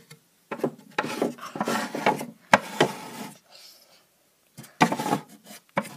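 Sliding doors of a wooden Breyer toy horse barn being slid open and shut by hand several times, scraping along their track with a few sharp knocks as they stop.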